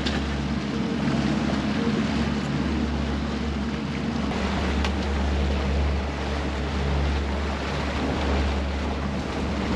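Twin outboard motors running steadily under way, a constant low drone, with wind and the rush of the boat's wake over it.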